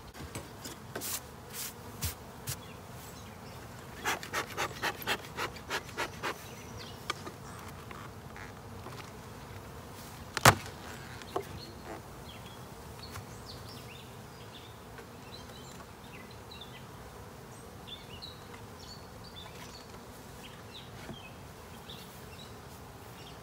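Honey bees buzzing at an opened beehive, with the knocks and scrapes of the wooden hive parts being handled: a few knocks, then a quick run of about eight regular strokes around four to six seconds in, and one sharp loud knock about ten seconds in as the top cover comes off.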